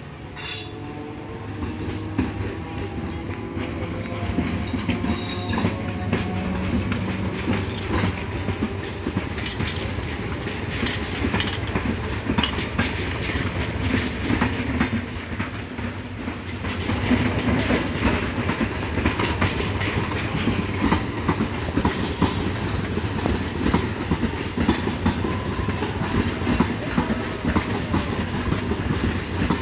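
Passenger train passing close by, its wheels clattering rhythmically over the rail joints. A tone falls in pitch over the first few seconds, and the clatter gets louder a little past the middle.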